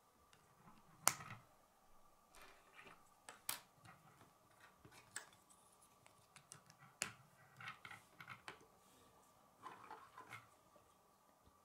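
K'nex plastic connectors and rods being handled and snapped together: light, irregular plastic clicks, the sharpest about a second in, with others near three and a half and seven seconds.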